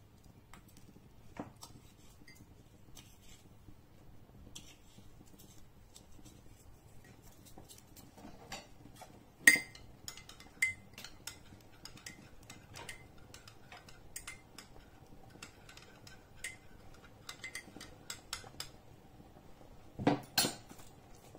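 Metal utensil clinking and tapping against dishware in irregular strokes while chicken stock cubes are mixed with pan juices, with the loudest sharp clink a little before halfway and a flurry of clinks near the end.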